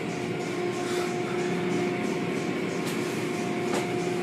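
Car wash machinery running: a steady mechanical drone with a constant hum, and two short clicks about three and four seconds in.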